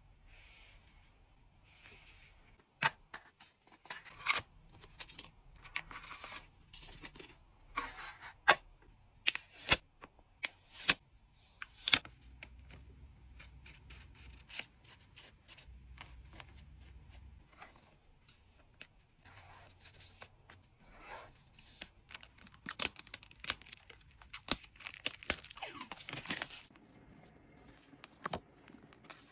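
Packing materials being handled: plastic and tape torn, crinkled and rustled in short bursts with sharp clicks, busiest near the end.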